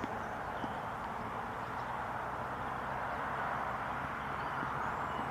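Steady outdoor background noise, an even rushing sound with no distinct events.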